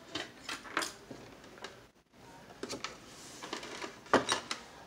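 Clicks, knocks and light scrapes of a radio cabinet being handled and turned on a workbench, with a louder knock about four seconds in.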